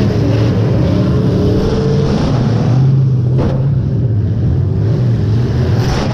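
Demolition derby car engines running hard and revving loudly, with a single sharp crash about halfway through.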